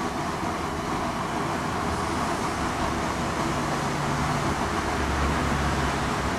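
Propane turkey-fryer burner running under the pot: a steady rushing noise as it heats the oil toward frying temperature.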